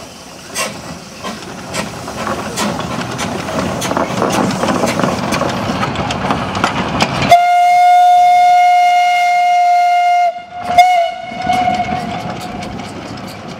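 Narrow-gauge steam locomotive pulling away, its exhaust chuffing at a little under two beats a second as the train noise builds. About seven seconds in, the steam whistle sounds one long steady blast of about three seconds, then a short second blast.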